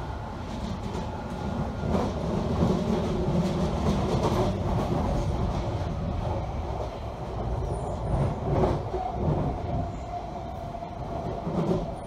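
Cabin interior of a London Underground 1996 Tube Stock train running at speed: a steady rumble of the car with scattered wheel knocks on the rails, and a faint steady whine joining in for the last few seconds.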